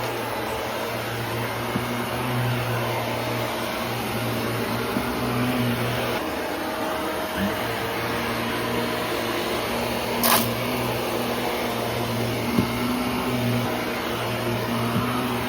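Vacuum cleaner running steadily, its motor hum wavering slightly as it is pushed, with one brief sharp noise about ten seconds in.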